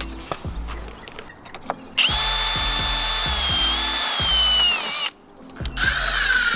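Power drill running for about three seconds, its whine dipping slightly in pitch near the end, then a second, shorter run at a lower pitch, as railing bracket hardware is fastened.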